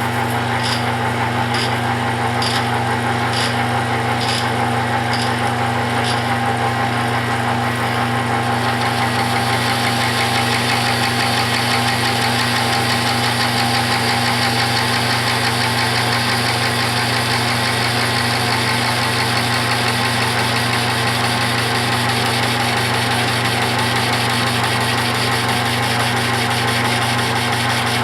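Metal lathe running steadily while taking a light cut of about five thousandths of an inch, the motor humming under it. A light tick repeats about every three-quarters of a second at first, and from about nine seconds in a steady hiss joins.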